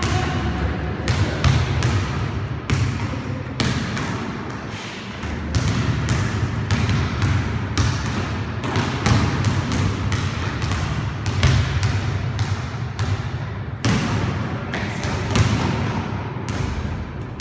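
Basketballs bouncing on a hard indoor court floor: an irregular run of dribbling thuds, several a second, from players working a drill.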